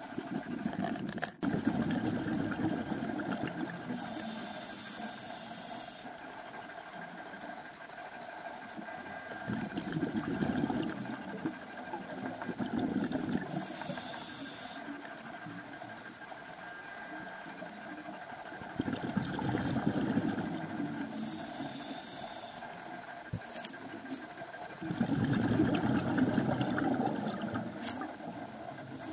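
A scuba diver breathing through a regulator underwater. A hiss on each inhalation alternates with the louder bubbling rush of exhaled air, one breath every several seconds. A faint steady hum runs underneath.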